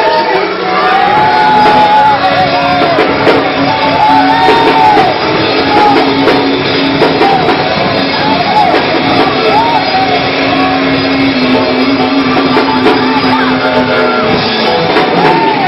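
Loud live church music with voices shouting and singing over it, steady throughout.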